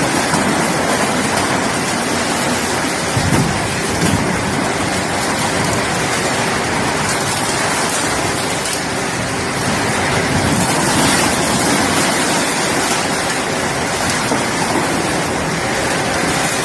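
Industrial shredder's rotating cutter shafts tearing and crunching white plastic panels and a foam box: a dense, steady crackling rush, with a couple of louder cracks about three and four seconds in.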